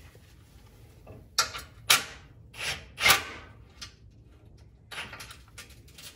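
Cordless impact wrench run in short bursts, driving the bolts of a steel skid plate up into the truck's frame: four quick bursts in the first half, then one more near the end.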